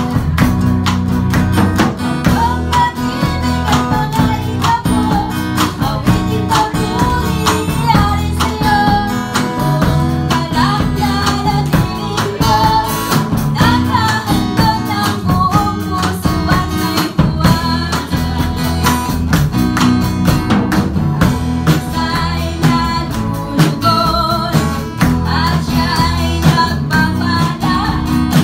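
Small live band playing a song: a woman sings lead through a microphone over a strummed acoustic guitar, electric bass and a drum kit.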